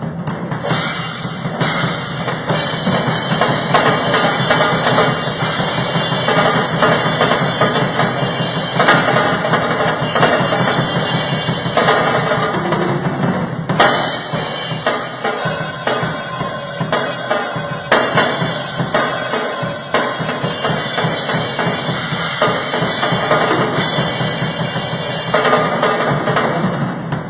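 Drum kit played without a break in a busy, rapid pattern, with bass drum and snare strokes crowded close together.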